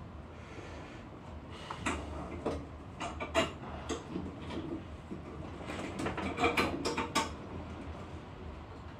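Metal parts of an espresso machine clinking and knocking as they are worked by hand in a bench vise: scattered sharp clicks, the loudest about three and a half seconds in and a busy cluster around six to seven seconds.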